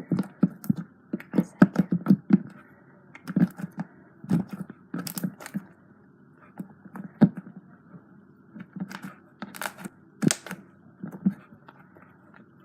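Sticky glossy slime being squished and pressed by hand, making irregular wet clicks and small pops, bunched in clusters with short gaps between.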